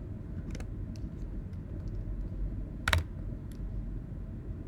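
Scattered keystrokes on a computer keyboard as a search term is typed, with one sharper click about three seconds in, over a steady low hum.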